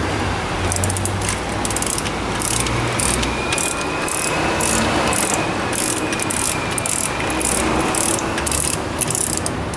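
Hand ratchet wrench clicking as it is worked back and forth in quick strokes, about two bursts of clicks a second.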